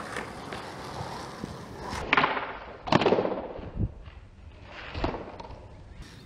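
Skateboard wheels rolling on pavement, then a series of sharp wooden clacks and thuds as the tail is popped for a varial heelflip and the board lands and is ridden away. The loudest cracks come about two and three seconds in, with smaller knocks after.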